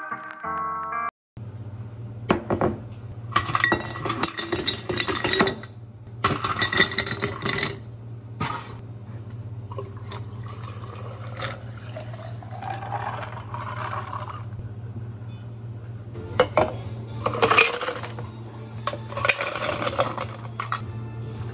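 Ice cubes and glassware clinking at a cafe bar in several loud spells, with water poured into a glass pitcher of ice cubes in the middle, rising in pitch as it fills. A steady low machine hum runs underneath. Brief music at the very start cuts off after about a second.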